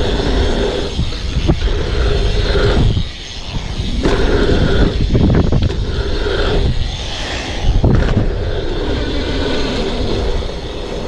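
Wind buffeting the microphone of a handlebar camera as a BMX bike rides through dirt jumps, with the tyres rolling on packed dirt. The rush dips briefly about three seconds in.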